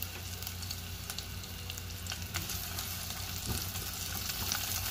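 Sliced shallots and minced garlic sizzling in hot oil in a pot, over a low steady hum. A spatula stirs them in the second half, with one sharp knock against the pot about three and a half seconds in.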